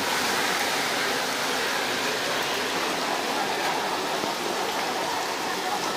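Heavy tropical downpour falling on a flooded street: a steady hiss of rain on standing water.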